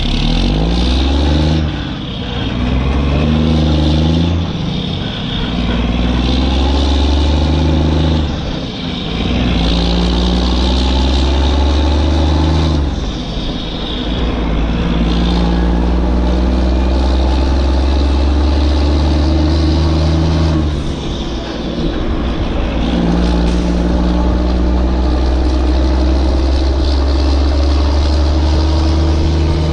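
Heavy machine engine running loud and steady, with its pitch shifting and brief drops in level every few seconds, like a loader working under changing load.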